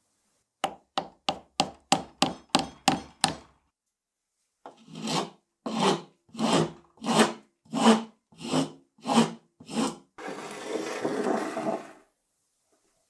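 A wooden wedge being set into the top of an axe handle with about nine quick sharp taps. Then a hand file rasps back and forth across the end grain of the wedge and handle in about nine slow strokes, ending in about two seconds of continuous rapid rasping.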